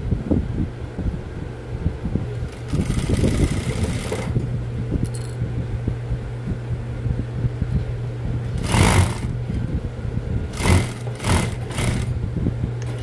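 Industrial lockstitch sewing machine stitching a folded fabric bag handle, running in several short spurts, a longer one a few seconds in and brief loud ones later, over a steady low motor hum.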